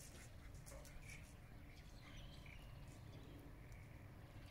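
Near silence: faint outdoor background with a low hum and a few faint short chirps.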